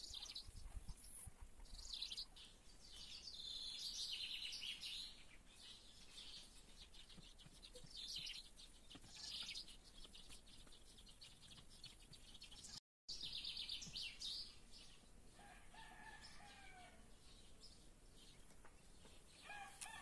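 Faint chirping and twittering of small songbirds throughout, with a rooster crowing in the distance about two-thirds of the way through. The sound drops out completely for a moment about thirteen seconds in.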